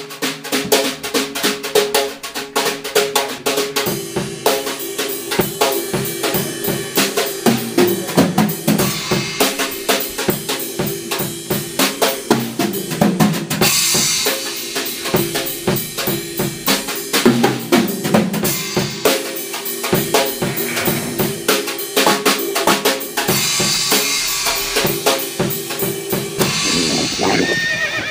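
Music: a drum-kit track with snare and bass drum and a steady beat.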